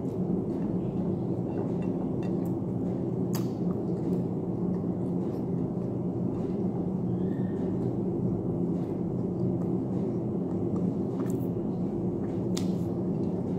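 A steady low hum, with a few faint clicks and smacks of eating by hand.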